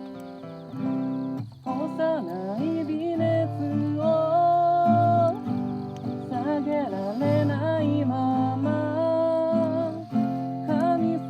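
A voice singing a slow melody with held, sliding notes, accompanied by acoustic guitar.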